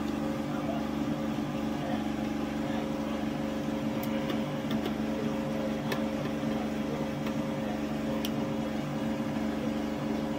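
Steady hum of a power generator running, with a few faint clicks of a screwdriver driving screws into a metal bracket.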